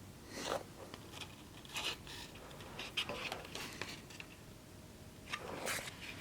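Faint, scattered rustles and light scrapes of handling, a handful of short soft noises a second or so apart.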